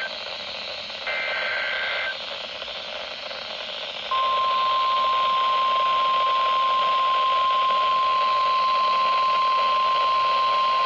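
NOAA Weather Radio Emergency Alert System signal over a weather radio receiver's static hiss. A burst of SAME digital header data, about a second long, comes about a second in. About four seconds in, the steady 1050 Hz warning alarm tone starts and holds, marking a new warning being broadcast.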